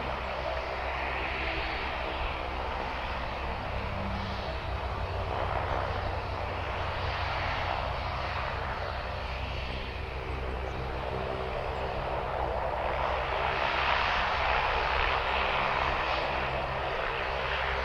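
CH-149 Cormorant (AgustaWestland AW101) search and rescue helicopter running on the ground with its main rotor turning: a steady turbine and rotor sound that swells and eases, a little louder a few seconds before the end.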